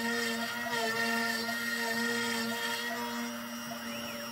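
Trim-router spindle on a NymoLabs NBX-5040 CNC router running with a steady whine while its quarter-inch upcut bit cuts MDF; about three seconds in the cutting noise drops away as the bit lifts clear of the board, leaving the motor running on its own.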